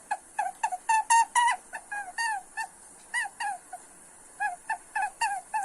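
Recorded rabbit squeaks: a rapid run of short, high, pitched squeaks, about three or four a second, with a short pause midway.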